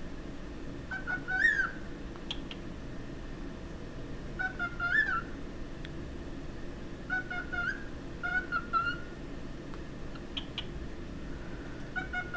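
Cockatiel whistling its song: short warbling whistled phrases that rise and fall in pitch, five of them with pauses between, over a steady low hum.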